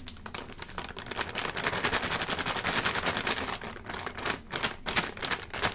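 A plastic packet of gram flour (besan) crinkling and crackling in quick clicks as it is tipped to pour flour into a measuring bowl, with a few louder snaps near the end.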